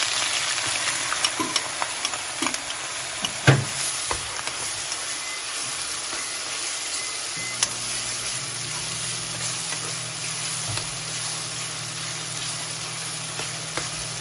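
Chopped onions sizzling as they go into hot oil with cumin seeds and dried red chillies in a steel kadai, loudest as they land and then settling into steady frying. A metal spoon scrapes and clinks against the pan as they are stirred, with the sharpest clink about three and a half seconds in.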